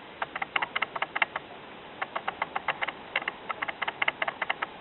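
A weak kitten eating, its mouth making quick wet clicking smacks at about seven a second as it licks and chews the food, with a short pause a little over a second in.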